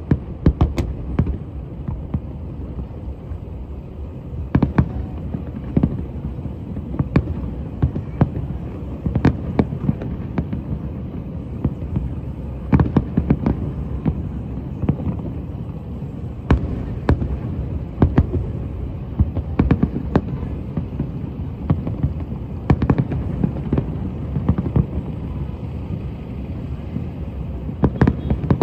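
Fireworks going off in irregular succession: sharp bangs about once or twice a second over a continuous low rumble of booms.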